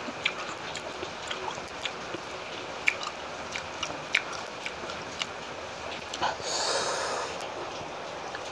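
Close mouth sounds of someone eating: scattered soft wet clicks and smacks from chewing, then a long noisy drawn breath lasting about a second, about six and a half seconds in, at the heat of the chillies.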